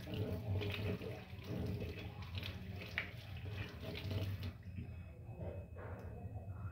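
Water running from a tap as a tongue cleaner is rinsed under it, the flow stopping about four and a half seconds in.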